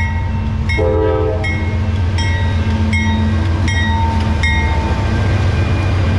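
CSX diesel freight locomotives passing: a short horn blast about a second in, and the locomotive bell ringing about every three-quarters of a second until near the end, over the steady low rumble of the engines and train.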